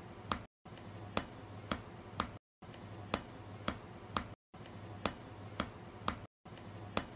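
A short loop of sharp clicks or snaps, three or four per pass, repeating about every two seconds with a brief dropout between repeats, over a faint low hum.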